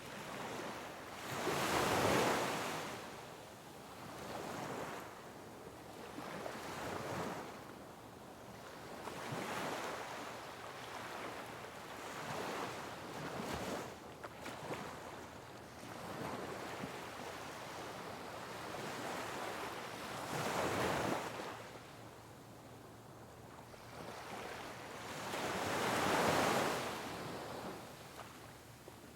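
Sea waves breaking on rocks: a steady wash of surf rising into loud crashes, the biggest about two seconds in, about twenty-one seconds in and about twenty-six seconds in, with smaller surges between.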